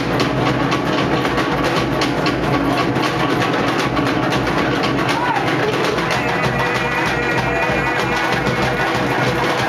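Fast Polynesian show drumming with a dense, driving beat of struck drums and percussion.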